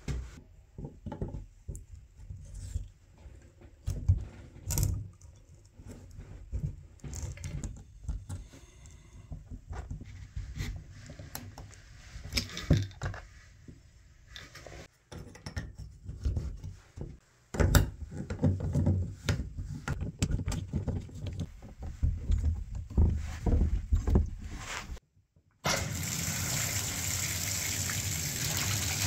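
Scattered metal clicks, taps and knocks of hands and tools working on a Moen bathtub valve stem and refitting its knob. Near the end, water gushes steadily from the tub spout.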